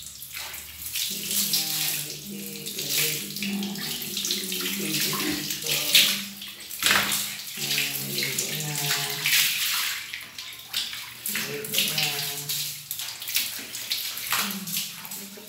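Water running from a hose onto a tiled shower floor and splashing over a piglet as it is washed, with sharp splashes throughout.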